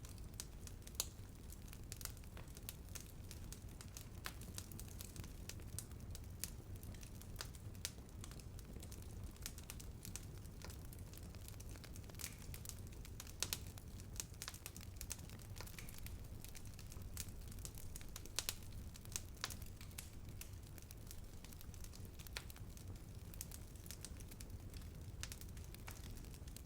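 Wood fire burning: a steady low rumble of flames with irregular crackling and snapping, a few sharper pops standing out.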